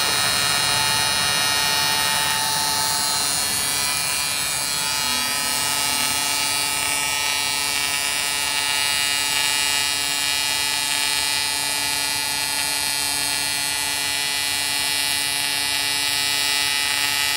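Steady buzzing hum of an AC TIG welding arc on aluminum, from an ESAB EMP 205ic AC/DC welder set at about 150 amps, welding brackets onto an aluminum boat hull.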